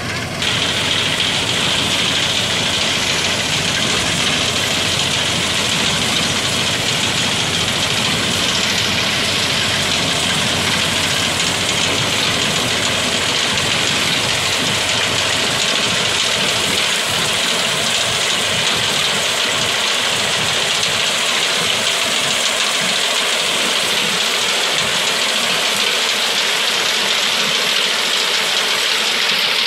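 Tractor engine running steadily under load, driving a front-mounted Al-Haseeb reaper binder that is cutting standing wheat. A steady high rushing noise lies over the engine throughout.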